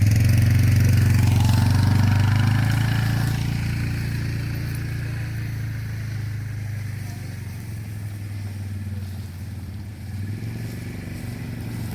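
Truck engine running close by at a steady pitch, then fading gradually as the truck drives away.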